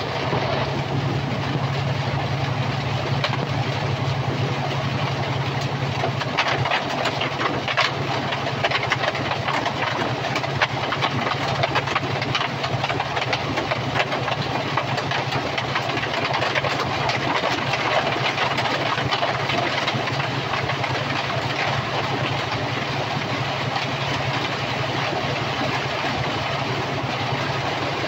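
Heavy rain pelting a semi-truck's windshield and cab, heard from inside the cab, over the steady drone of the truck's Detroit DD15 diesel engine under way.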